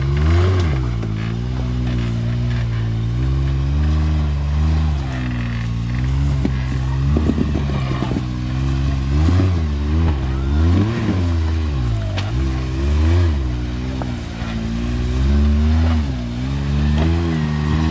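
Side-by-side UTV engine revving up and falling back over and over in short throttle bursts, as it crawls over rocks.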